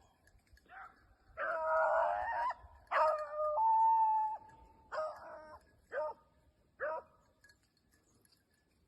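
Beagle hound baying: two long drawn-out bawls, the second ending on a held note, then three short chop barks about a second apart.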